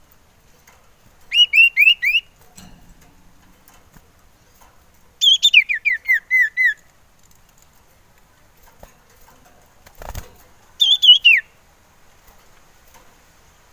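Male cipoh sirtu (iora) singing in three short bursts of quick, clear whistled notes. The first is about five notes, the second about nine notes falling in pitch, and the third about four notes dropping steeply. A brief thump comes just before the last burst.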